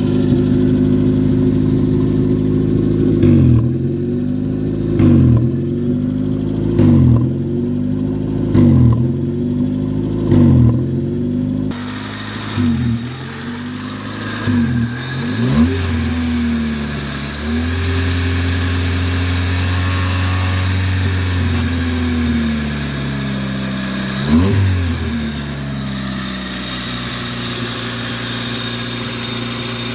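1994 Honda Civic DX's four-cylinder engine running on its first start after a fuel pump replacement, revved in short blips about every two seconds, then held at a higher speed for several seconds, blipped once more and left to idle. The engine has an exhaust leak.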